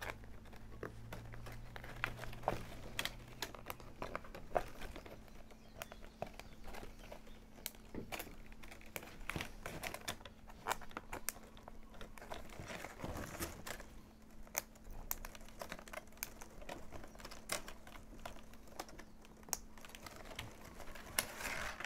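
Plastic baling straps being handled and tucked into the weave of a strap basket: many small irregular clicks and crinkles of the stiff plastic strips.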